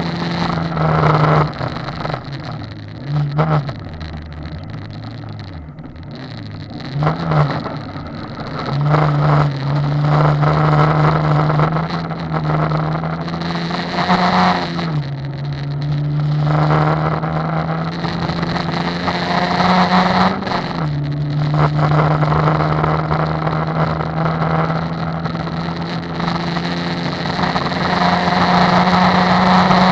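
Car engine heard from inside the cabin, driven hard on a gravel road: the engine note climbs steadily and then drops sharply twice, about halfway and two-thirds of the way in, as it shifts up a gear. Tyres rumble on the gravel throughout.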